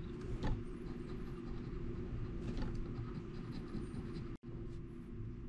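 A coin scraping the coating off a scratch-off lottery ticket in a couple of short strokes, over a steady low hum. The sound drops out for an instant near the end.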